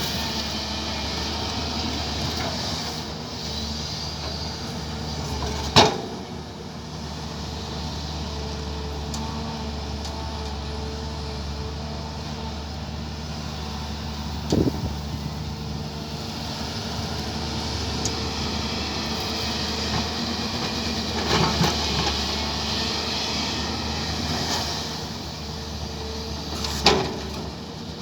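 Diesel engine of an earthmoving machine running steadily under work, with a few sharp metallic knocks now and then.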